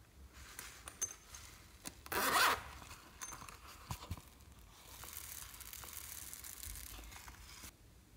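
Zipper on a small silicone pouch pulled open in one quick, loud rasp about two seconds in, with light clicks of handling around it. Later comes a steady hiss lasting a few seconds that cuts off sharply near the end, as the foam beads inside are poured out.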